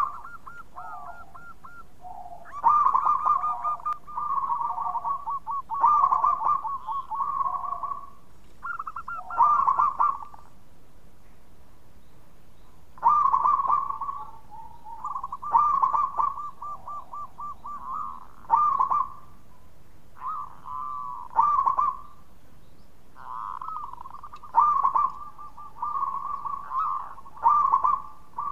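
Zebra dove (perkutut) singing its cooing song: quick rippling runs of soft notes ending in a louder coo, repeated every couple of seconds with one longer pause about halfway through.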